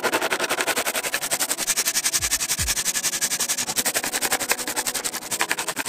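Small pieces of hard candy pouring from a metal bowl into a plastic tub, a fast, dense clatter of hard sugar pieces hitting plastic and each other. A couple of dull thumps come about two seconds in.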